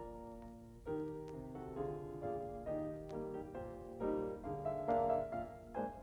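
Piano music playing a quick succession of notes and chords.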